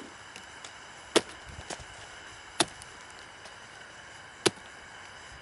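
Tomahawk chopping into a pumpkin on a log: four sharp chops, spaced about one and a half to two seconds apart, with a fainter knock between the second and third.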